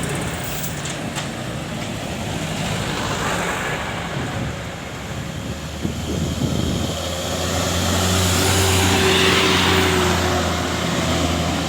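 Road traffic noise, then from about seven seconds in a large bus's diesel engine drones steadily and grows louder close by, peaking a couple of seconds later.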